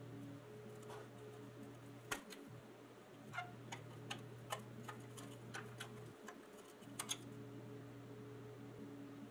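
Light metallic clicks and taps as a small screwdriver prises the loose roof panel off a rusty pressed-steel toy truck cab. They come irregularly, about ten in all, the sharpest near 2 s and 7 s, over a faint steady hum.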